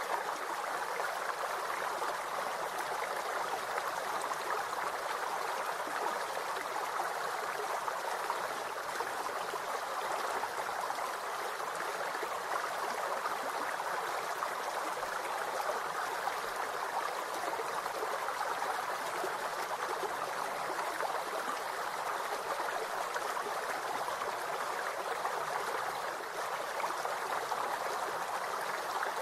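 Steady, even rushing noise like flowing water from a stream, unchanging throughout.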